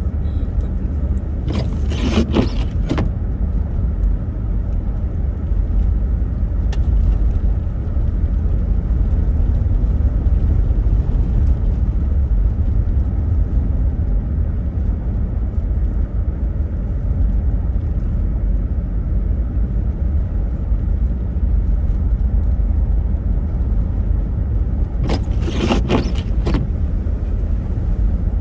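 Car cabin noise while driving: a steady low rumble of engine and tyres on the road. Twice, about two seconds in and again near the end, a brief louder hiss rises over it for a second or so.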